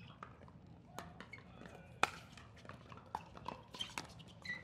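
Pickleball rally: paddles striking the hard plastic ball with sharp pops. There is one hit about a second in and the loudest about two seconds in, then a quicker run of hits near the end as play moves to the net.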